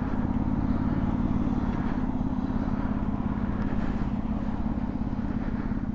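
Honda CBR600RR sport bike's inline-four engine idling steadily.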